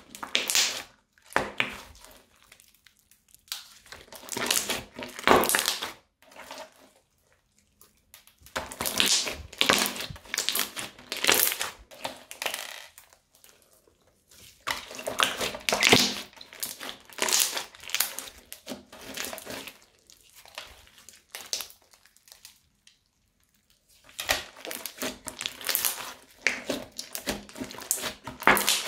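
Hands squeezing and kneading bead-filled crunchy slime: dense crackling, popping and squishing in bursts, one handful after another, with pauses of one to two seconds between them.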